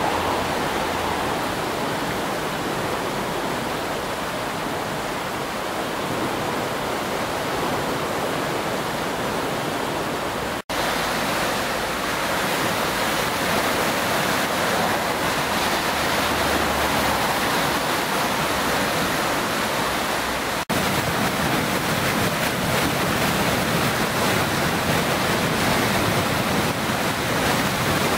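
The Ergolz river in flood, its high water rushing steadily. The sound breaks off for a split second twice, about ten seconds apart.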